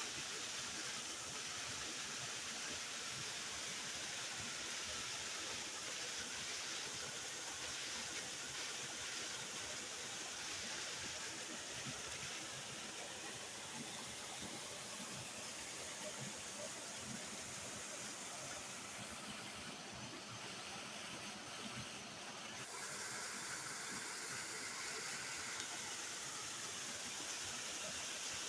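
Waterfall: water falling and rushing steadily, a continuous hiss-like noise.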